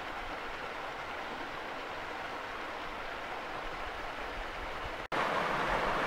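Steady rush of flowing water. About five seconds in it cuts out for an instant and comes back louder: a small waterfall pouring into a rock pool.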